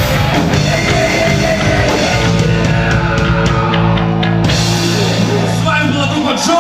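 Rock band playing live on stage, in the closing bars of a song; the band stops about six seconds in.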